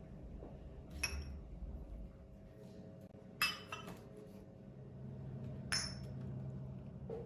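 Three sharp clinks of dishes or utensils being handled, each with a short high ring, about one, three and a half, and six seconds in, over a low steady hum.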